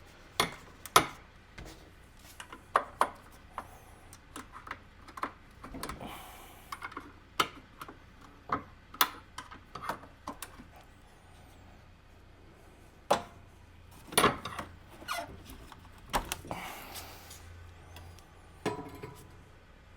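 Irregular clicks, knocks and short scrapes of a bonnet gas strut being handled, its end clips pried off and snapped into place by hand and with a screwdriver.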